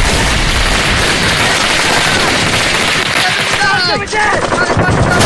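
Dense, continuous gunfire: rapid overlapping shots, machine-gun fire among them, with no break.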